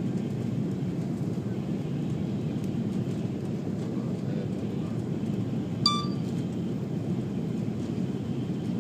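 Steady low rumble of engines and airflow inside an airliner cabin, heard from a window seat on approach to landing. A brief high electronic beep sounds about six seconds in.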